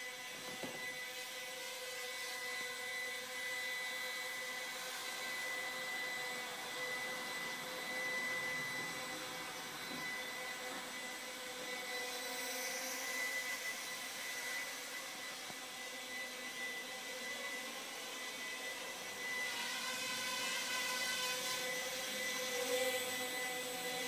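Walkera QR Ladybird micro quadcopter's four small electric motors and propellers whirring in flight: a steady high whine, a little louder for the last few seconds.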